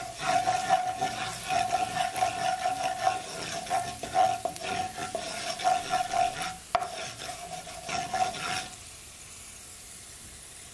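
Wooden spoon stirring and scraping curry powder and garlic through sizzling hot oil in a nonstick wok, with a steady tone running under the strokes: the curry powder being toasted ('burned') in the oil. The stirring stops about nine seconds in, leaving only an even, quieter sizzle.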